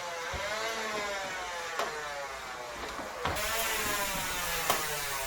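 Nerf flywheel blaster motors whirring, a steady whine that wavers slowly in pitch, with a sharp click about every second and a half.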